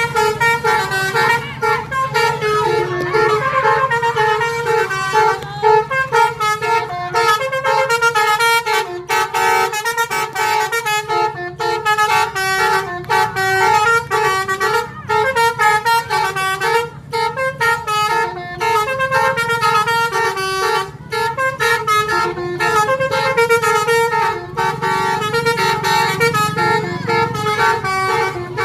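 Bus 'telolet' horn, a multi-tone musical air horn, playing quick melodic phrases of stepped notes over and over, with a low engine rumble underneath.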